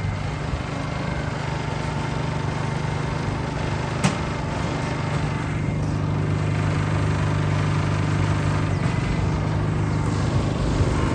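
Small engine running steadily with a low hum, typical of a street food cart's generator, getting a little louder about halfway through. A single sharp click about four seconds in.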